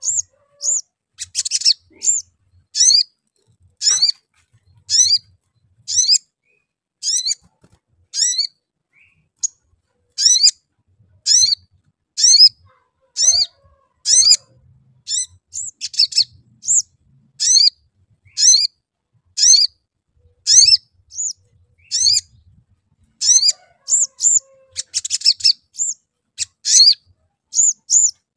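Olive-backed sunbird calling: a long, steady series of sharp, high 'cuit' chirps, each falling in pitch, about one to two a second, broken by short rattling 'crecet' bursts near the start and again late on.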